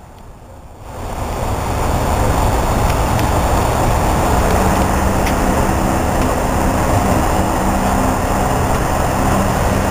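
Tram pulling away: a low running rumble builds over the first couple of seconds, then holds steady, with a faint steady hum running through it.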